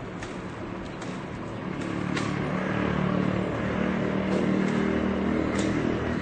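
Chainsaw engine running with an even, steady pitch, getting louder about two seconds in, over a background of city noise.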